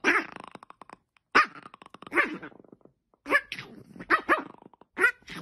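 Dog under a blanket growling and barking at a hand poking it: about six short barks, roughly one a second, with growling between them.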